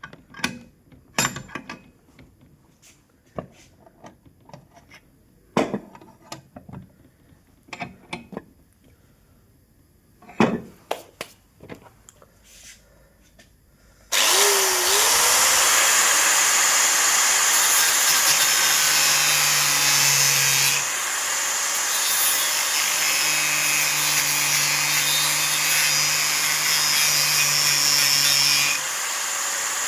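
Scattered clicks and knocks of handling for about fourteen seconds, then an electric angle grinder switches on, its whine rising briefly as it spins up, and runs loud and steady while cutting acrylic sheet.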